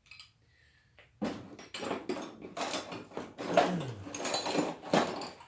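Metal hand tools clattering and clinking as they are handled and moved about on a table, starting about a second in, with a short falling squeal partway through.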